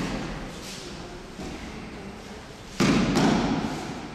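Bodies landing on tatami mats in throws and breakfalls, heavy thuds echoing in a large hall. The echo of one fall dies away at the start, then two more falls land in quick succession near the end.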